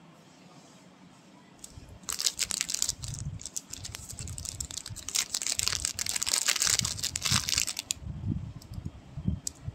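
A thin clear plastic packet being handled by hand, crinkling and crackling densely for about six seconds from roughly two seconds in, with low bumps of handling underneath.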